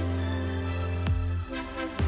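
Electronic background music with a deep bass line and a steady beat of drum hits.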